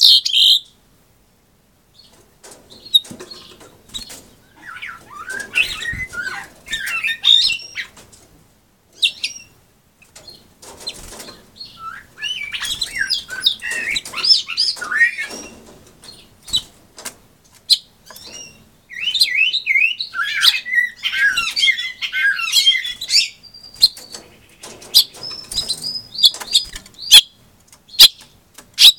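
Caged male house finch singing rapid, warbled song phrases in three main outbursts of a few seconds each, with shorter notes near the end. Sharp clicks and taps are scattered between the phrases.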